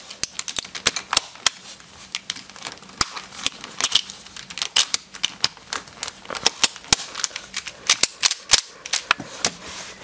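Hard plastic pieces of a Dayan Mini Zhanchi 50 mm speedcube clicking and snapping as they are pressed back into the cube by hand: many sharp, irregular clicks.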